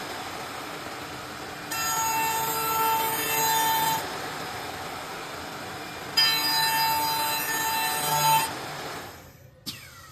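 4-axis CNC wood-turning lathe machining a wooden leg blank, its cutting passes coming in bouts of about two seconds with a high whine during each cut, easing between them. Near the end the machine noise falls away, followed by a sharp click.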